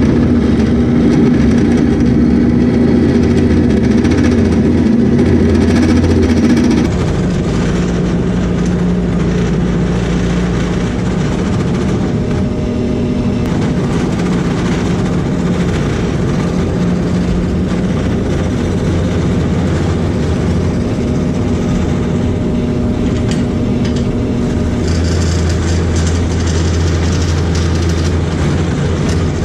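Craftsman Professional wood lathe running, with a turning gouge cutting a long walnut handle blank as it spins: a steady motor hum under the scraping of the tool on the wood. About seven seconds in, the hum drops a little in pitch and level.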